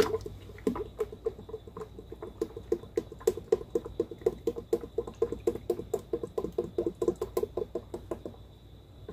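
Heavy cream glugging out of a quart carton into a stainless steel mixing bowl, a quick, even run of about five glugs a second that stops about eight seconds in. A sharp knock comes at the very start.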